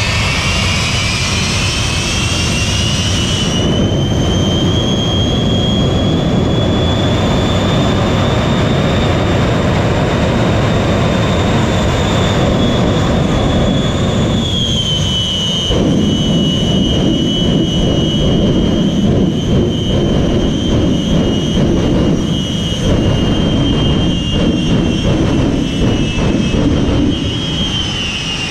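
Shockwave jet truck's three jet engines running at the line with a loud roar and a high turbine whine. The whine rises over the first few seconds, steps up about halfway through, and falls away near the end, while the roar turns rougher and more uneven in the second half.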